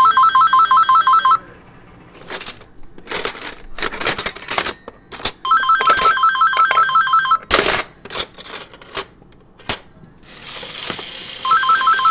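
Electronic telephone-style ring, a rapid warbling trill in bursts of about two seconds that repeat every five to six seconds. Sharp clicks and knocks fall between the rings, and a steady hissing rush starts shortly before the last ring.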